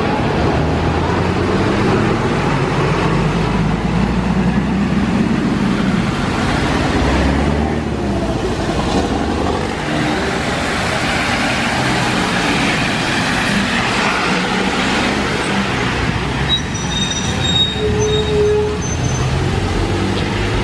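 Street traffic on wet asphalt: city buses' engines running and tyres hissing on the rain-soaked road, with a few brief high squeals near the end.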